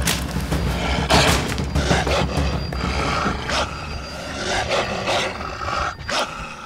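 A werewolf creature's sound-effect roars come in several sudden outbursts over a deep, steady drone of horror score. The drone drops away near the end.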